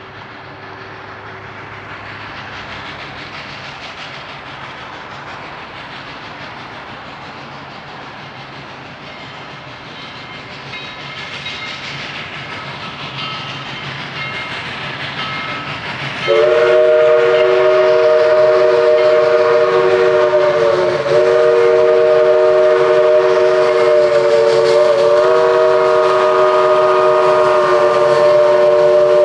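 A steam locomotive's running noise grows steadily louder, then about 16 seconds in its three-note chime whistle sounds one long, loud blast held to the end, dipping briefly partway through.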